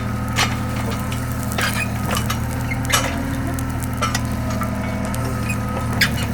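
A heavy machine's engine running steadily at a low hum, with a large log bonfire popping and cracking sharply about half a dozen times.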